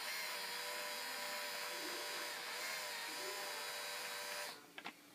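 Electric motor of a Halo paintball hopper running steadily as it spins the agitator that feeds paintballs, a whine with slightly wavering pitch. It cuts off suddenly about four and a half seconds in, followed by a few faint clicks.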